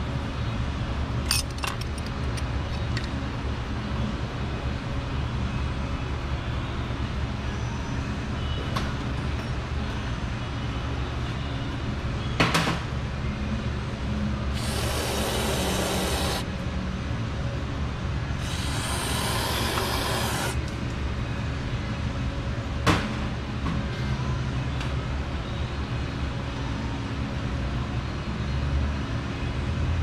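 Two hissing sprays of about two seconds each, a few seconds apart, and a few sharp clicks, over a steady low hum.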